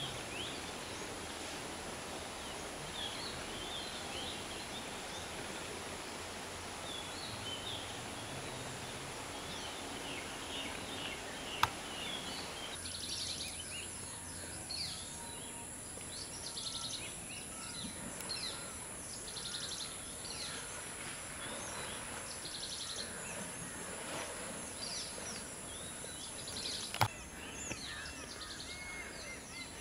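Outdoor wildlife ambience: small birds chirping over a steady background hiss. About halfway through the sound changes to a high, steady insect buzz with rhythmic pulsing calls. There are two sharp clicks, one just before the change and one near the end.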